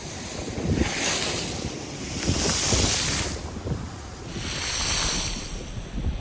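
Sea waves washing onto the shore in two surges of hiss, the first a couple of seconds long and the second about a second long, with wind buffeting the microphone as a low rumble.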